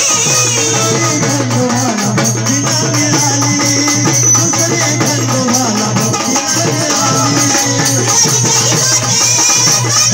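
Maharashtrian Waghya-Murali folk devotional music: a woman's singing voice, holding and bending long notes, over steady drum and jingling percussion.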